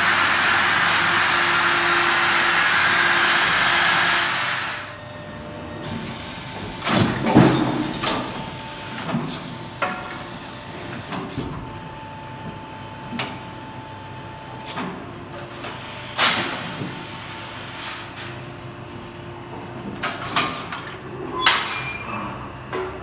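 Corded angle grinder with a hoof-trimming disc running steadily against a cow's hoof, cutting off about four and a half seconds in. After that come scattered metal clanks and knocks from the steel hoof-trimming chute, the loudest a few seconds after the grinder stops.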